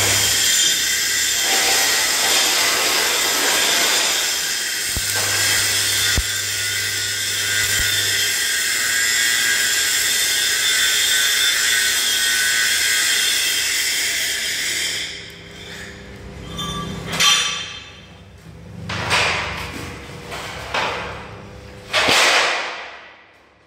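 Electric arc welding with a stick electrode on a steel loader frame. The arc makes a steady crackling sizzle for about fifteen seconds, with a low hum for a few seconds in the middle, and then stops. Four or five shorter bursts of arc sizzle follow, with quieter gaps between them.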